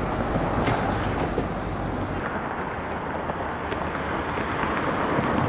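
Front loader's engine running steadily, with wind rushing on the microphone. About two seconds in, the low engine hum drops away at a cut, leaving a steady outdoor rush.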